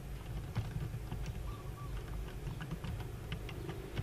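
Typing on a computer keyboard: irregular keystrokes, several a second, over a steady low hum.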